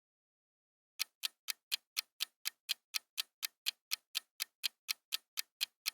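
Clock ticking sound effect: sharp, even ticks at about four a second, starting about a second in.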